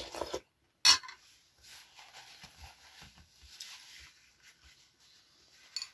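Eating sounds from someone taking borscht from a spoon: a brief slurp at the start, a sharp click just under a second in, then soft chewing, with another small click near the end.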